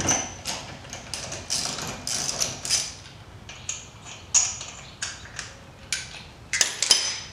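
Ratchet wrench clicking as lug nuts are backed off a car wheel, in short irregular runs of sharp clicks.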